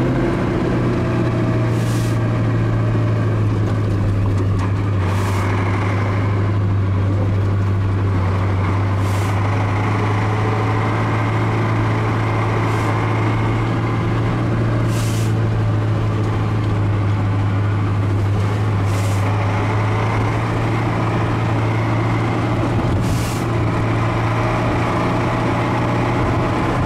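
Ural truck's engine running steadily while driving, heard from inside the cab as a constant low hum. Short high hisses come every three to four seconds.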